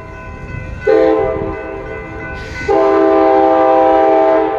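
Amtrak Corridor train's air horn sounding its chord. There is a short loud blast about a second in, then a long loud blast from about the middle until near the end, with the horn fainter in between.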